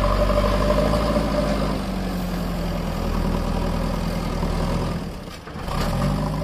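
JCB 3DX backhoe loader's diesel engine running with a steady drone. It drops away briefly about five seconds in, then picks back up with the pitch rising a little.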